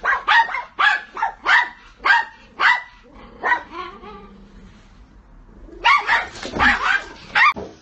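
A dog barking: a run of short, sharp barks about two a second, a pause of a couple of seconds, then a quicker flurry of barks near the end.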